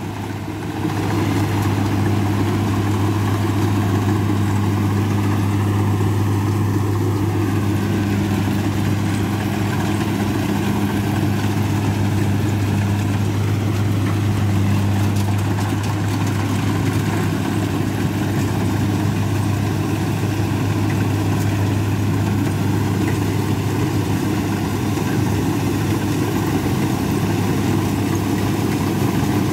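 Kubota DC70 combine harvester's diesel engine running steadily under load as it cuts lodged rice, with a deep steady hum that gets louder about a second in as the machine comes closer.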